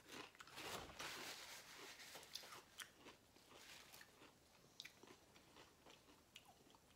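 Close-up chewing of a salsa-dipped tortilla chip: soft, irregular crunches and wet mouth clicks. They are busiest between about one and two and a half seconds in, then thin out to scattered small clicks.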